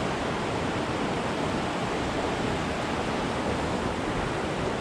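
Steady rush of fast-flowing river water, an even hiss without breaks.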